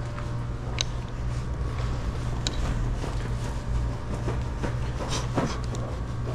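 Steady low mechanical hum of a room full of running equipment, with a few light clicks and knocks scattered through it.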